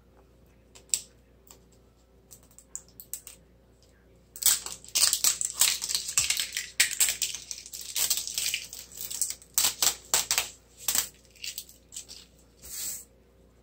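Plastic wrapping crinkling and tearing as it is peeled off an L.O.L. Surprise toy ball. Scattered crackles at first, then a dense run of crackling from about four seconds in until about eleven, then a few more crackles.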